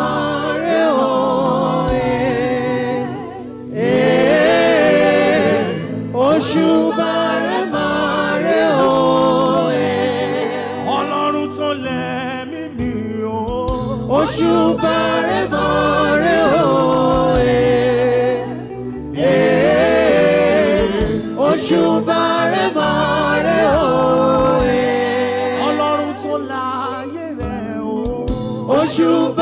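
Gospel singing by a vocal group in harmony over a low bass line, continuous and loud, with short breaths between phrases.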